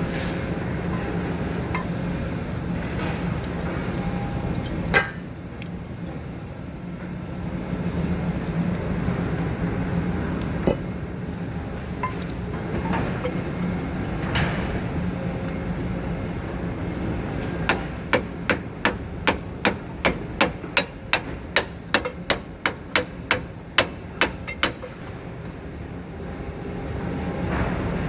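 Hammer striking metal, driving a bearing holder into place on a shredder's bearing housing: a few single knocks, then a quick run of blows about three a second over a steady low hum.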